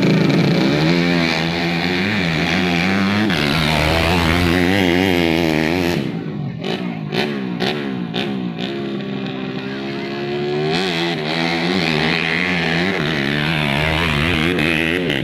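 A pack of motocross dirt bikes revving together at the start line, many engines wavering up and down at once. About six seconds in the sound changes and the bikes accelerate away, with engines rising in pitch as they pull off.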